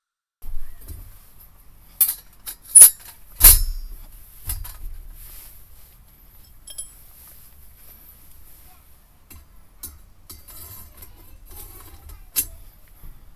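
Sharp clinks and knocks of small hard objects being handled, a cluster of the loudest about two to three and a half seconds in and one more near the end, over a low rumbling handling noise.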